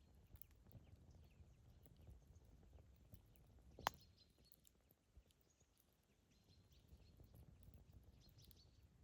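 Campfire burning faintly, with a low rumble of flames and scattered soft crackles, and one sharp pop of the wood about four seconds in.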